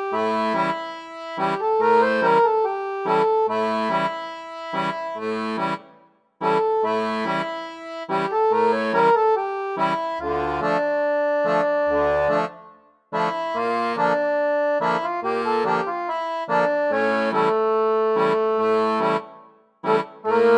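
Background instrumental music: short repeated chords in a steady pulse, breaking off briefly three times.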